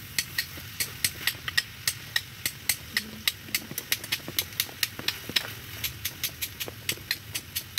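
Pork pieces frying in a pan on a portable gas stove, the fat popping and crackling sharply several times a second over a low steady rumble.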